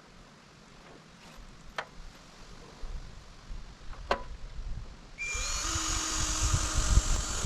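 A few light clicks, then a power drill running steadily with a motor whine for about two seconds near the end, driving screws into the wooden frame.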